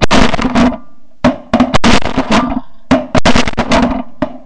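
A volley of shotgun blasts from several hunters firing into a flock of snow geese, many shots in quick succession in three or four bursts, the last one near the end. The shotguns are fitted with extended magazine tubes and are emptied in rapid fire.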